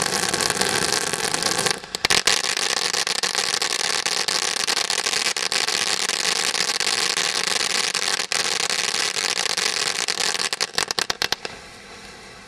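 Low-noise firework fountain burning with a steady hiss and dense crackle. It cuts out briefly about two seconds in and resumes, then sputters in a few short bursts and dies out shortly before the end.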